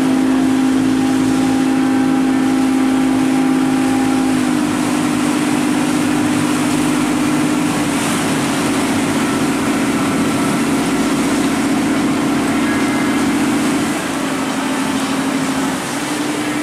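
Lobster boat's engine running steadily under way, its pitch shifting a few times, with wind and water rushing past.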